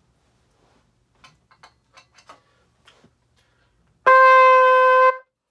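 Stagg C trumpet, just brought in tune, playing its tuning C (sounding C5) as one loud held note lasting about a second, starting about four seconds in. Faint clicks come before it.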